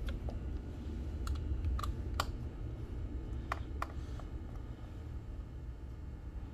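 Scattered light clicks and taps of a screwdriver and hard plastic housing while screws are taken out of a water ionizer's electrolysis chamber, about half a dozen in a few seconds, over a low steady hum.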